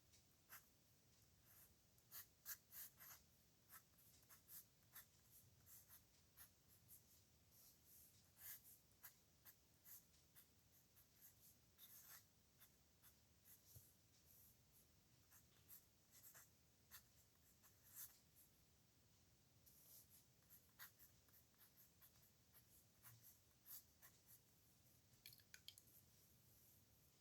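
A pen scratching across paper in many short, irregular strokes as characters are hand-lettered, faint and close.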